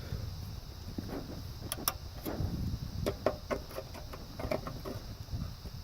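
Small plastic clicks and handling noises as an LED cab-light bulb is fitted into its plastic holder. There is a run of irregular taps and clicks, with a sharper click just before the end.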